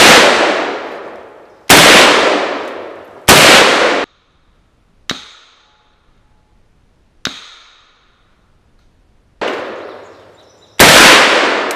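Century Arms RAS-47 AK-pattern rifle firing 7.62×39 rounds in slow single shots, seven in all, about one and a half to two seconds apart, each followed by a long fading echo. Two shots in the middle sound fainter than the rest.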